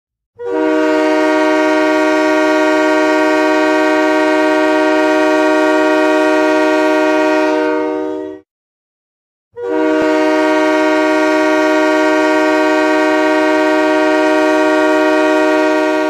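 Hockey arena goal horn sounding two long blasts of about eight seconds each, about a second apart. Each blast is one steady, multi-tone horn chord.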